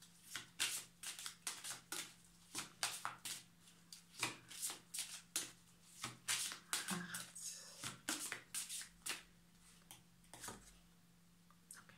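A deck of oracle cards shuffled by hand: a quick, irregular run of soft card slaps, two or three a second, that stops about a second before the end. A faint steady hum lies underneath.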